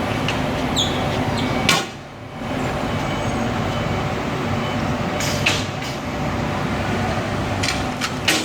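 Steady machinery hum, broken by a few sharp knocks and clicks: one about two seconds in, followed by a brief drop in the noise, then more a little past halfway and twice near the end.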